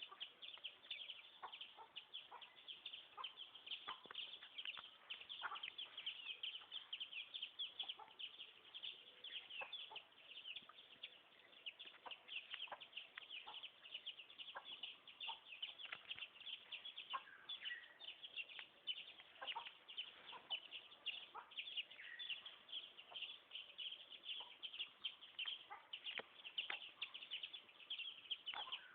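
Many birds chirping continuously in quick, overlapping high peeps, like a flock of fowl or chicks.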